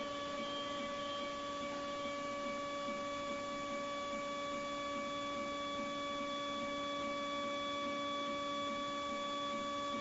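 Dental porcelain furnace's tray-lift motor running with a steady, even-pitched hum as the firing tray lowers.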